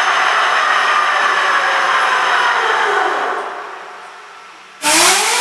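Homemade turbojet engine running with a loud rush and a high whine that falls as it slows, the noise fading over a couple of seconds. About five seconds in it comes back suddenly loud, the whine climbing as it spools up again.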